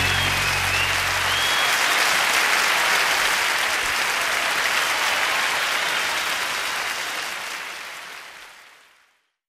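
Audience applause, with the last notes of a song dying away under it in the first second or so; the applause then fades out near the end.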